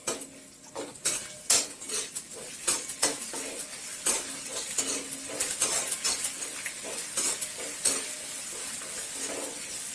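A spoon stirring and scraping in a kadai, with irregular clicks against the pan, over a steady sizzle of shallots, garlic and spices frying in sesame oil.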